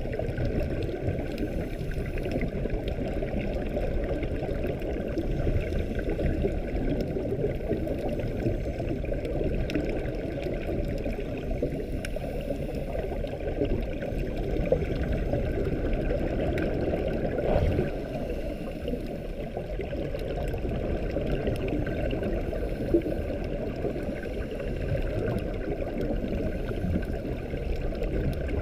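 Muffled underwater ambience heard through a GoPro's waterproof housing: a steady, low rush of moving water, with a few faint clicks.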